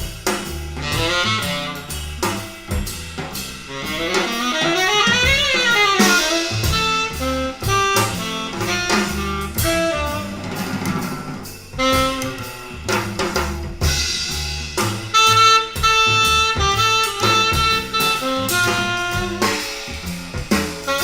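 Jazz trio recording with saxophone over drum kit. The saxophone plays a fast run that climbs and falls about five seconds in, then holds longer notes over the drums.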